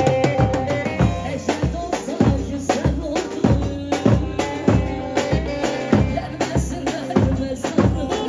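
Live Turkish folk dance music: a bağlama (saz) and other instruments over a steady, driving drum beat.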